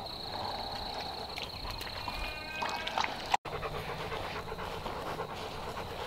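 A dog panting. A steady high-pitched trill runs underneath for the first two and a half seconds, and the sound cuts out for an instant a little past halfway.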